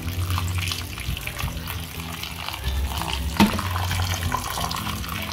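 Tap water running into a glass bowl of grated potatoes in a sink while a gloved hand swishes and squeezes the shreds, rinsing them. Background music plays underneath, and there is a single sharp knock about three and a half seconds in.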